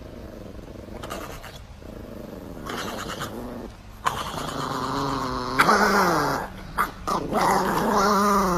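Small Chihuahua vocalizing in a long, wavering growl-moan whose pitch rises and falls. It is fainter at first and much louder from about four seconds in.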